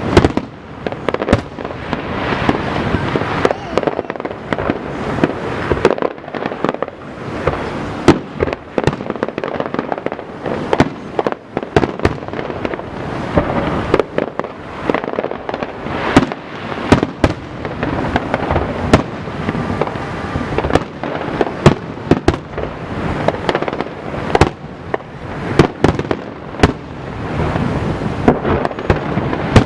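Fireworks display: aerial shells bursting in rapid succession, several sharp bangs a second overlapping one another with a dense rumble between them.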